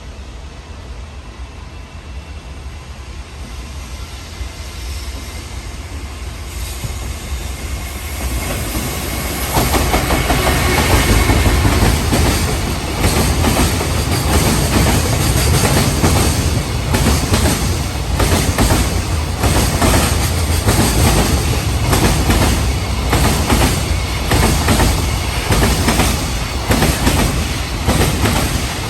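A freight train approaching and running through a station, growing louder over the first ten seconds. Then the wagons' wheels clatter over the rail joints in a steady repeating rhythm.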